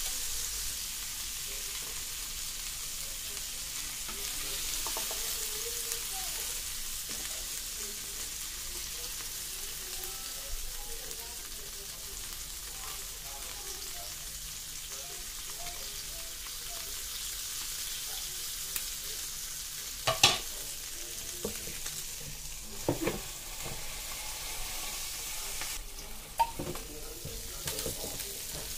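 Beef burger patties sizzling on the hot plate of an electric contact grill, a steady frying hiss. A few sharp knocks come in the second half.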